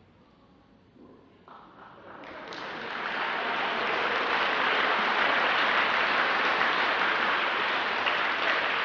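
A large crowd applauding, starting with a few claps about a second and a half in and swelling to steady, full applause by about three seconds in.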